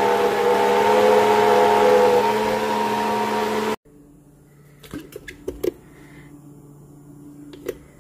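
Countertop blender running steadily on its puree setting, blending soaked sea moss with coconut oil and water into a gel, and stopping abruptly a little under four seconds in. After it stops there are a few light clicks and knocks as the blender jar and lid are handled.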